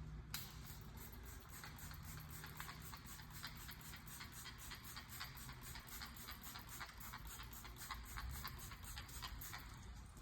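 Squeegee working the water out from under security film on window glass: a steady run of short strokes, about four a second.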